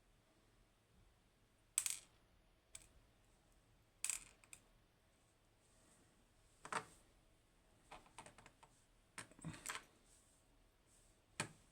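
Small metal parts of a disassembled pin tumbler lock clicking and clinking as they are handled and set down: faint, scattered sharp ticks, about one every second or two, a few coming in quick little clusters.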